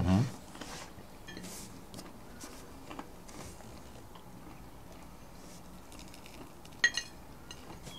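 Quiet eating at a table: faint chewing and small clicks of food and crockery, with one short sharp click about seven seconds in.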